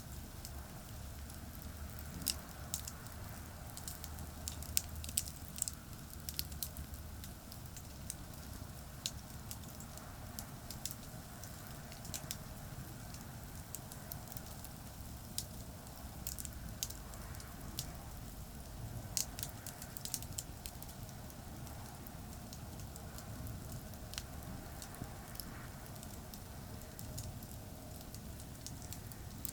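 Wood campfire crackling with scattered sharp pops over a steady low rumble of distant highway traffic.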